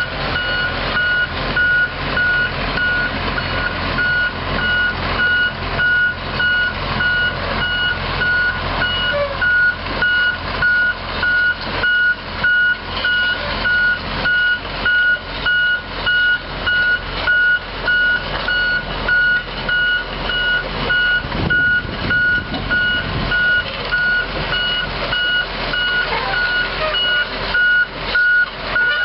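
Motion alarm beeping steadily, about once a second, over the running six-cylinder diesel of a 1997 Komatsu PC200LC-6 excavator as it travels on its crawler tracks.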